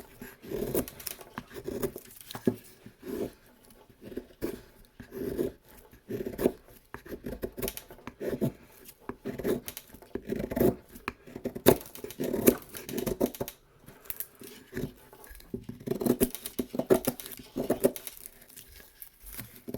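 Camillus Chasse folding knife with an AUS-8 steel blade cutting into wood under pressure: repeated scraping, tearing strokes, roughly one a second, with sharp clicks.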